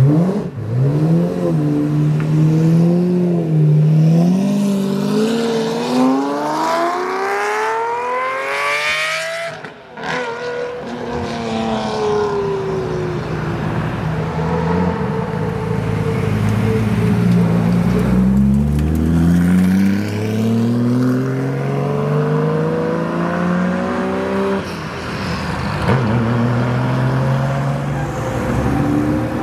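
Lamborghini Murciélago V12 revving as it pulls away, the note climbing in rising sweeps before dropping off sharply about ten seconds in. After that, another sports car's engine runs and accelerates again with a rising note in the second half.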